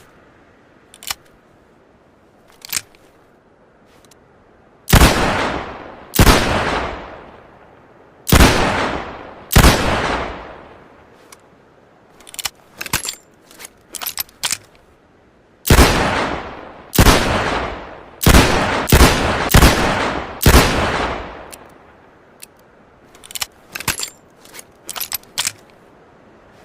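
.357 Magnum revolver firing: four loud shots about a second apart, then, after a pause with some clicks, six more in quicker succession, each with a long echoing tail. Sharp metallic clicks come before the shots and in a cluster after the last one.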